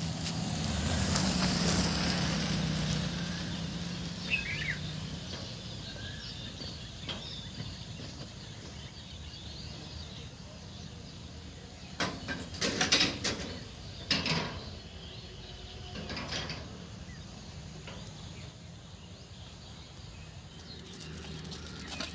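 Roadside ambience: a motor vehicle's engine hum, loudest in the first few seconds and fading, with birds chirping, and a burst of loud clattering noises about halfway through.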